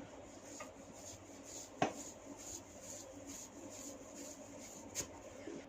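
Hands rubbing and working through long hair in soft, scratchy strokes, about two or three a second, during a head massage. There is a sharp crack about two seconds in and a fainter one near the end.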